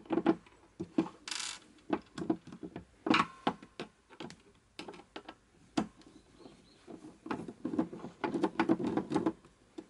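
Irregular small clicks, taps and knocks of a screwdriver working the screws of a Tokyo Marui MP5 airsoft gun's metal gearbox shell and of the gearbox being handled on a desk, with a short scrape about a second in and a busier run of knocks near the end.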